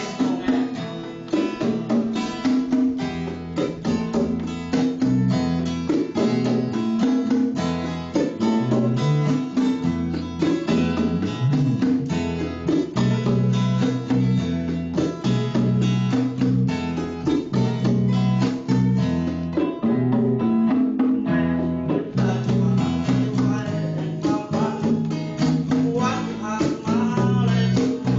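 Guitar-led song music: plucked guitar over a stepping bass line and a steady beat, with a voice possibly coming in near the end.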